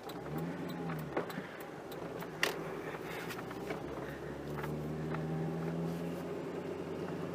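Old Ford F450's V10 engine running. Its pitch picks up briefly about half a second in and again for a second or two past the middle, with a few sharp clicks in between.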